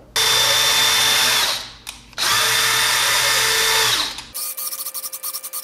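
Cordless drill spinning a ballscrew to drive a carriage along linear rails. Two runs of a steady whine, about a second and a half and two seconds long, each dropping in pitch as it stops, are followed near the end by a quieter run with rapid clicking.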